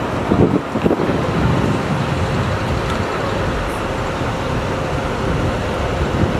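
Steady traffic noise: an even rush of vehicles with a faint steady hum underneath.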